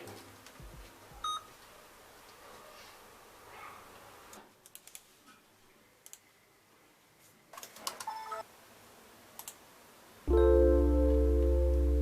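Faint small clicks and handling sounds, with a short electronic beep about a second in. About ten seconds in, background music with held keyboard-like chords and a deep bass starts suddenly and loudly.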